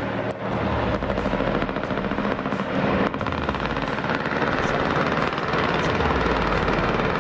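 UH-60 Black Hawk-type military helicopter flying past, its rotor blades beating in a rapid, steady rhythm; it grows louder over the first second.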